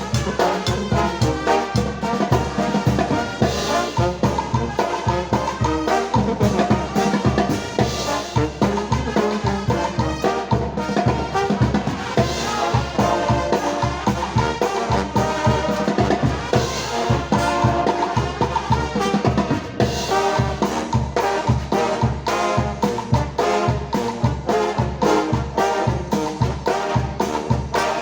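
Mexican brass band playing a cumbia: trumpets and trombones over drums and a steady low beat.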